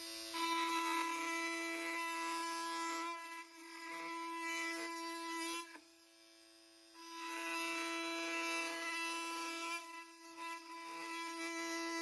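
Oscillating multi-tools running at top speed, 20,000 oscillations per minute, plunge-cutting their blades down into a wooden beam. They make a steady buzzing drone that fades almost away about six seconds in and picks up again about a second later.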